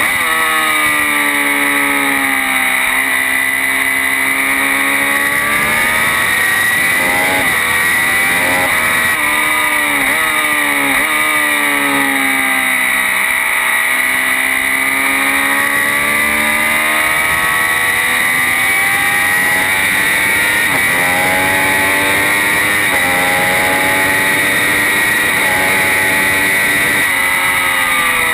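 Triumph Daytona 675's three-cylinder engine at speed on track, its note rising and falling several times, with quick step changes as it shifts gear and long falls as the revs drop. Steady wind rush underneath.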